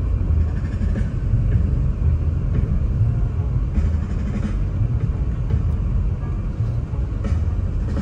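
A car driving on a snow-covered road, heard from inside the cabin as a steady low rumble of tyres and engine.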